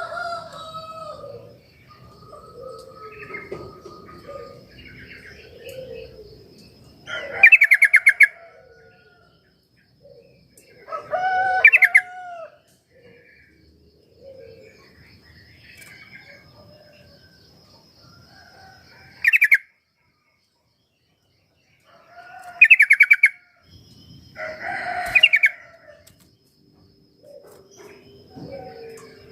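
Yellow-vented bulbuls (trucuk) singing: loud short bursts of rapid bubbly notes every few seconds, with softer lower calls between them and a faint high trill running underneath.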